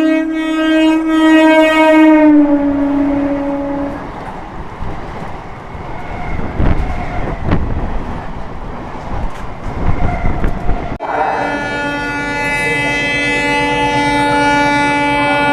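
A passing Indian Railways train's horn blown in a long blast, its pitch dropping about two seconds in as it goes by, followed by the rattle and clatter of wheels over the rail joints of the fast-moving train. About eleven seconds in, the sound cuts abruptly to another long, steady horn blast.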